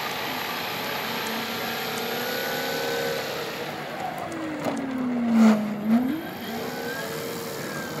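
Electric motor and 20-inch propeller of a large RC AT-6 Texan model running as it taxis. About five to six seconds in, its tone slides down and then rises sharply, the loudest moment.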